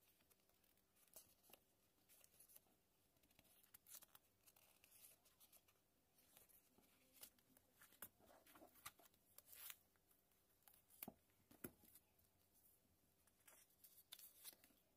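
Faint rustling and crackling of paper sticker-book pages being turned and handled, in short scattered rustles with a few sharper ticks a little past the middle.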